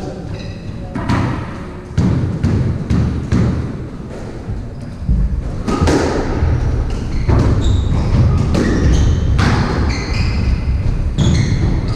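A squash rally: the ball struck by rackets and hitting the walls again and again, with players' shoes squeaking on the wooden court floor.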